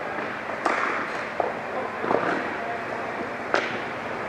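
Ball hockey play: sharp clacks of sticks and ball striking, four in all, spread through the stretch over steady background noise.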